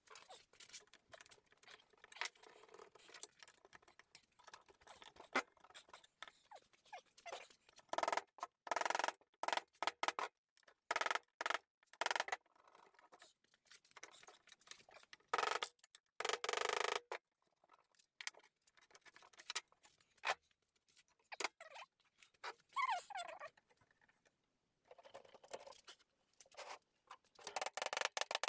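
Intermittent clicks, scrapes and light knocks of bar clamps being set and tightened around the glued wooden laminations of a landing-net frame, with a short falling squeak about two thirds of the way in and mallet taps on the frame near the end.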